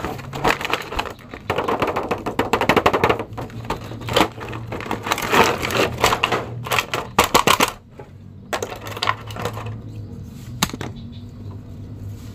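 Clear plastic blister tray and cardboard box crackling and rustling as a boxed set of action figures is opened and handled. The crackling is dense for most of the first eight seconds, then thins out to a few sharp clicks.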